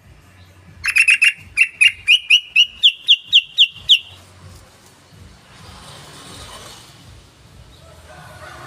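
Yellow-vented bulbul (trucukan) song: a quick run of about a dozen bright, bubbling notes starting about a second in, rising slightly and speeding up, lasting about three seconds.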